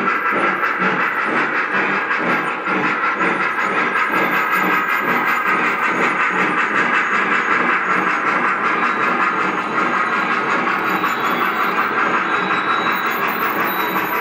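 Lionel O-gauge model steam locomotives running, their onboard sound systems giving a steady, rhythmic steam chuff with hiss, over the noise of the trains rolling on the rails.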